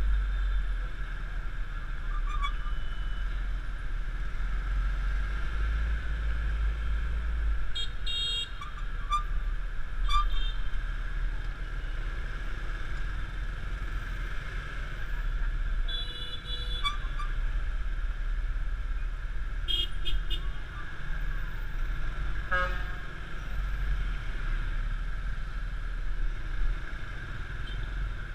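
Riding a small scooter in heavy city traffic: a steady low rumble of the engine and wind on a helmet-mounted microphone, with short horn beeps from the surrounding motorbikes and cars sounding several times, in bursts of two or three.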